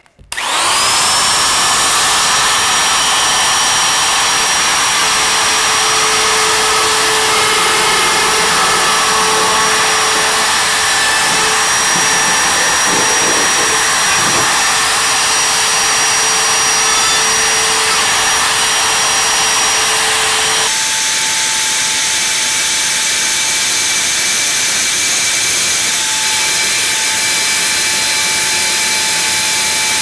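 DeWalt cutout tool with a soft-materials bit starting up with a brief rising whine, then running at high speed with a steady high-pitched whine as it cuts through a plastic kayak hull. Its pitch shifts once, about two-thirds of the way through.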